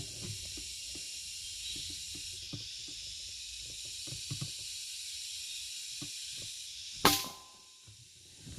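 Steady high-pitched hiss of outdoor ambience with faint rustling and small ticks, broken by a single sharp crack about seven seconds in.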